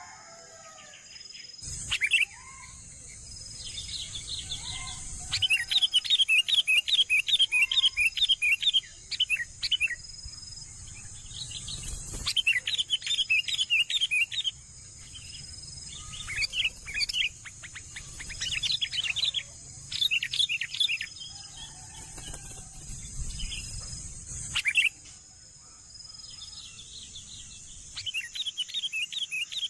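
Bulbul nestlings chirping in quick bursts of many short, high notes, several times over, above a steady high drone of insects.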